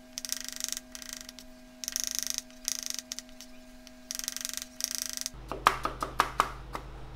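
Chef's knife slicing shallots thin on a plastic cutting board. It comes as several short runs of very fast ticking strokes, each under a second, and near the end turns to slower single knocks of the blade on the board.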